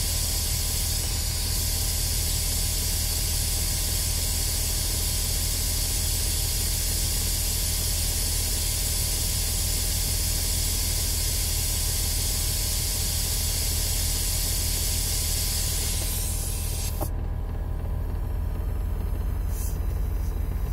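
Car's built-in load-leveling suspension air compressor running with a steady hiss of air, under a low steady hum. The hiss cuts off suddenly about 17 seconds in, and the hum carries on.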